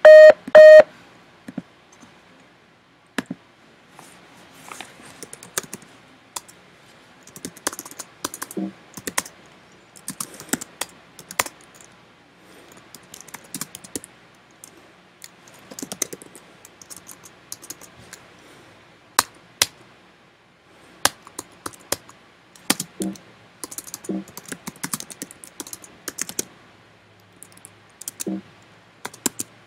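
A few short electronic beeps right at the start as the VoIP call disconnects, then typing on a computer keyboard: scattered key clicks with pauses between runs.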